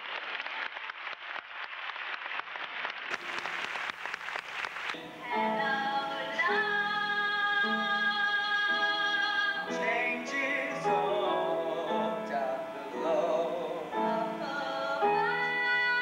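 Audience applauding, then about five seconds in, music starts: a woman singing long held notes over instrumental accompaniment.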